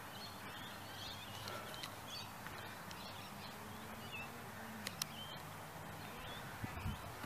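Quiet open-air ambience: small birds chirping and calling on and off over a faint low drone that drops slightly in pitch a little past halfway.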